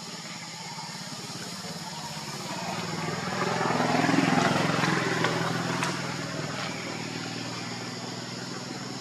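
A motor vehicle passing by: its engine hum grows louder to a peak about four seconds in, then fades away.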